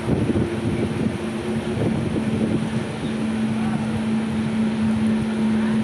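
Electric-hauled Indian Railways express coach running at speed, a steady rush of wheel and air noise with a steady low hum.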